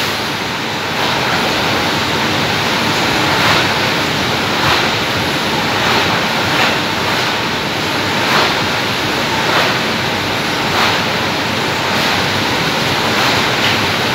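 Tin-sheet printing line with UV curing oven running: a steady, loud rushing machine noise. A light clack repeats about every second and a quarter as sheets travel along the conveyor.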